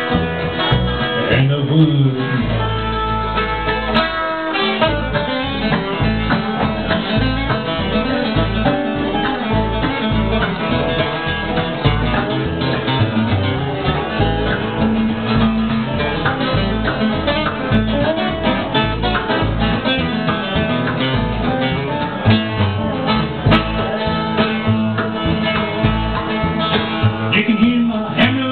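Bluegrass band playing live on acoustic guitar, mandolin and upright bass, with the plucked strings keeping a steady rhythm.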